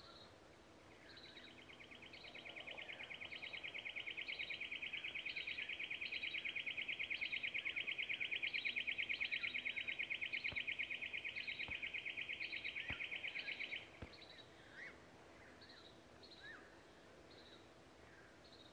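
Outdoor animal calls: a long, fast-pulsing trill that swells over a few seconds, holds, and stops abruptly about fourteen seconds in, over short high chirps repeating about once a second throughout.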